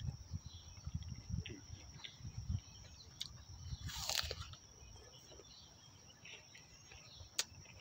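A person eating a raw apple: close, wet chewing of a mouthful through the first few seconds, then a crisp crunching bite into the apple about four seconds in.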